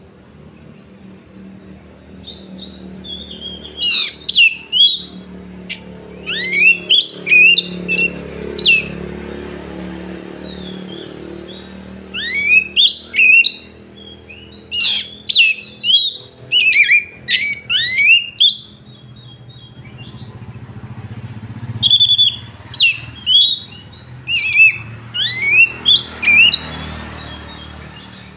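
Oriental magpie-robin (kacer) singing loudly in bursts of sharp, rising whistled notes, grouped into phrases with short pauses between them, over a low steady background hum.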